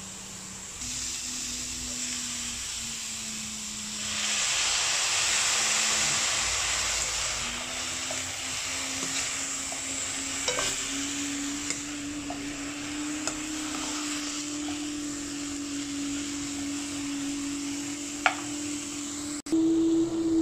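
Broccoli and carrots sizzling in a hot pan while being stirred with a wooden spatula, with a few sharp knocks of the spatula against the pan. The sizzle swells about four seconds in and eases off a few seconds later, over a low steady hum that slowly rises in pitch.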